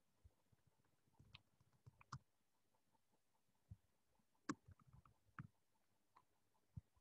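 Faint, irregular computer keyboard key clicks, a scattered handful of keystrokes deleting text.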